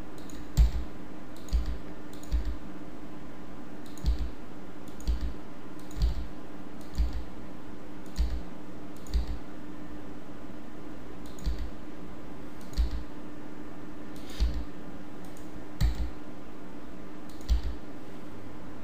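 Computer keyboard key presses and mouse clicks while extruding curve points in Blender: short sharp clicks about once a second, some in close pairs, over a faint steady hum.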